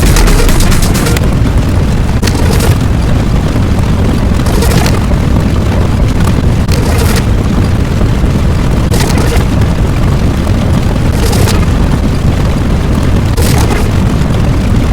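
Explosion-like sound effect: a loud, continuous deep rumble with a brighter crackling burst about every two seconds.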